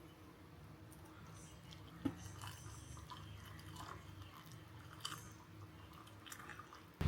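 Faint scattered small clicks and crackles over a low, steady room hum, with one sharper click about two seconds in.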